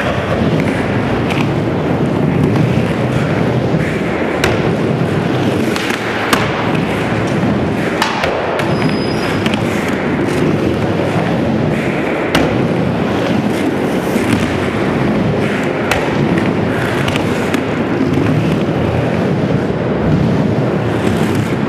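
Skateboard wheels rolling on concrete, with sharp clacks and thuds scattered throughout as boards pop, land and strike ramp edges.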